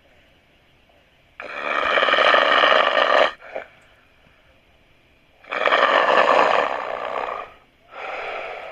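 A person snoring loudly: two long snores of about two seconds each, with a pause between them, then a shorter, softer snore starting near the end.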